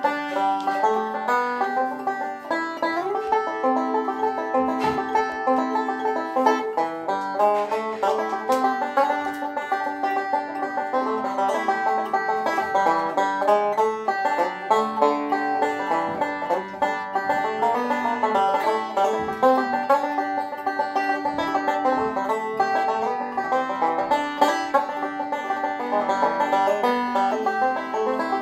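Handmade Linden resonator banjo played solo, a steady, fast stream of picked notes carrying a bluegrass-style tune.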